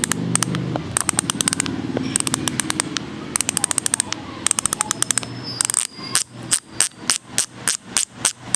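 Weapon Beast bicycle hub's freehub clicking as it is spun: fast buzzing runs of clicks in spurts, then, after about six seconds, slowing to separate clicks about three to four a second as it coasts down.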